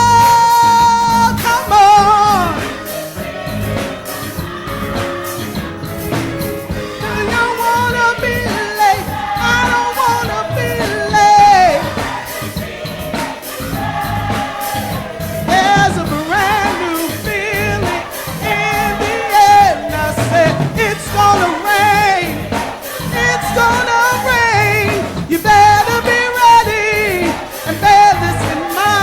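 Music: a sung song, the voices held in long notes with vibrato over an accompaniment.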